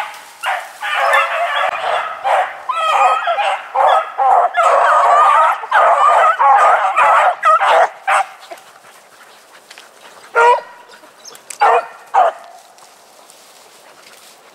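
Pack of beagles baying together on a running rabbit, many voices overlapping. The chorus breaks off about eight seconds in, leaving a few single cries as the pack loses the track and stops to search.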